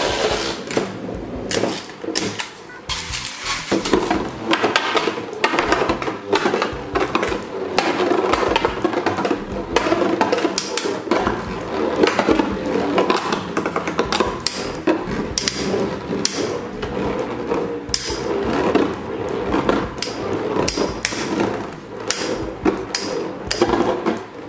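Two Infinity Nado metal spinning tops spinning and clashing in a plastic battle arena: a steady whirring from the spinning tops on the plastic, broken by a dense, irregular run of clicks and knocks as they strike each other.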